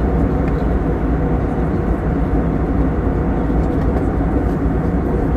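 Steady cabin noise of an Airbus A321 in flight, heard from inside the cabin: the even, deep rush of engines and airflow, with a faint steady hum in it.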